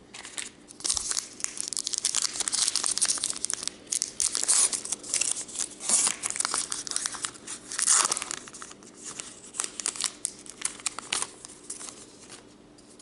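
Foil wrapper of a 2018 Topps Gypsy Queen baseball card pack being torn open and crinkled, a dense crackling rustle that dies down near the end.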